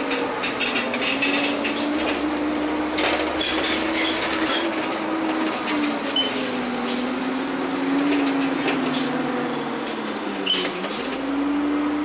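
Interior of a 1999 first-generation Nova Bus LFS transit bus under way: a steady whine from the engine and drivetrain that wanders with speed, dips about ten seconds in and then climbs again, over the rush of the roof air-conditioning fans running on full, with light rattles from the bus body in the first few seconds.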